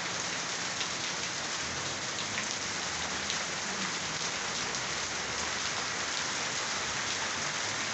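Heavy rain falling steadily on the street, roof and garden plants, with scattered close drip ticks.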